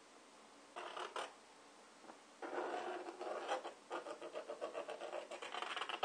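Pointed metal scribe scratching a line into a thin plastic lid, tracing around a fan to mark the hole to be cut. A short stroke about a second in, then continuous rapid scratching from about two and a half seconds on.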